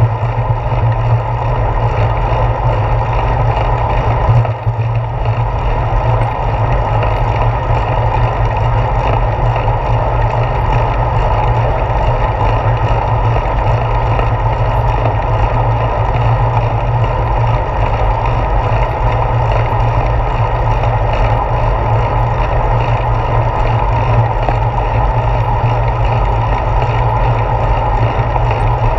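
Wind and road rumble on a handlebar-mounted action camera while cycling: a loud, steady, muffled rush with a heavy low hum, dipping briefly about four and a half seconds in.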